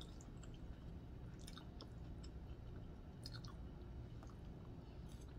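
Faint chewing of a mouthful of spaghetti with deer sausage, with scattered small wet mouth clicks.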